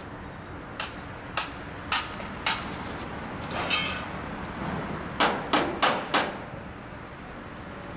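Hammering on framing being added to secure sheathing: four sharp, evenly spaced blows, a short scraping rattle in the middle, then four quicker blows.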